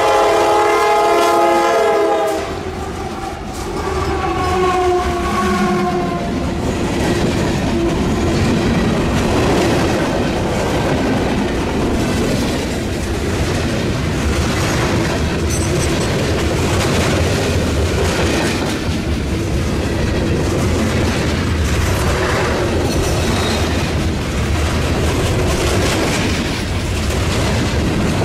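CSX freight train passing close by. The lead diesel locomotive's horn chord sounds and stops about two seconds in, and a brief lower-pitched horn note follows a few seconds later as the locomotives pass. Then the open-top freight cars roll by with a steady wheel rumble and clickety-clack.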